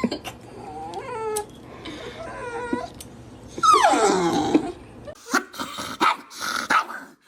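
A dog talking back with drawn-out, whiny howl-like vocalizations, several calls that slide down in pitch, the loudest about four seconds in. After about five seconds there is a run of short, sharp sounds.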